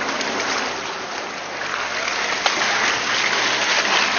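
Branches and leaves brushing and scraping along the body of an off-road Suzuki Jimny as it pushes through dense undergrowth. A crackling hiss full of small snaps that grows louder about two seconds in.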